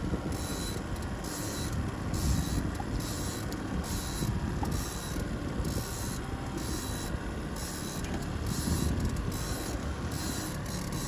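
Steady low drone of a trolling boat's motor running, with wind and water noise around the hull.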